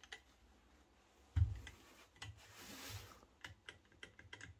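Faint clicks and taps from a cordless reciprocating saw's blade clamp being worked by hand, with one dull thump about a second and a half in.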